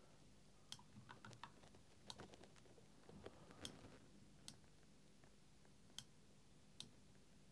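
Faint, irregular clicks of a computer mouse and keyboard, about a dozen in all, some coming in quick runs of two or three.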